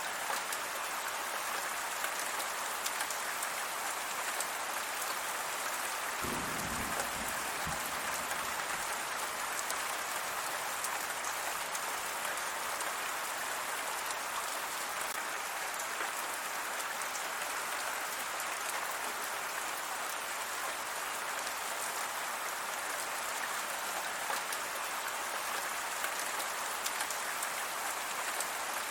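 Steady rain falling, an even hiss with fine patter of drops. About six seconds in there is a brief low rumble.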